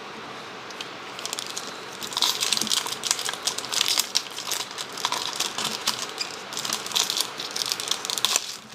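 Trading-card pack wrapper crinkling as it is handled and torn open, a dense run of irregular crackles that starts about a second in.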